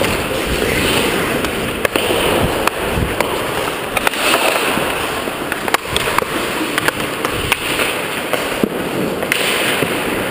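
Ice hockey play: skates scraping the ice under a steady rush of noise, with frequent sharp clacks of sticks and puck on the ice.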